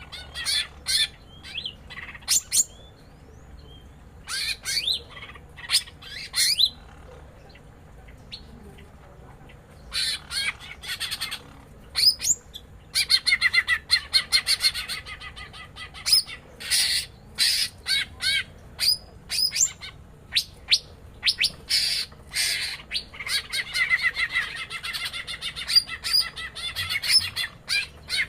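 Cucak ijo (green leafbirds), a female and a male, calling back and forth in bursts of sharp calls. There is a short lull about a third of the way in, and longer chattering runs later.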